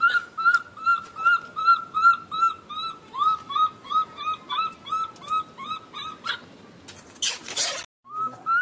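Baby macaque crying: a rapid, even series of short, high, whistle-like cries, about three a second, typical of an infant macaque in distress. About seven seconds in there is a harsher, noisy rasp.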